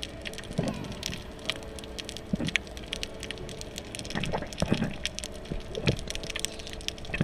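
Underwater sound picked up by an action camera in its waterproof housing: a dense crackle of sharp clicks, with muffled low thumps every second or so and a steady low hum underneath.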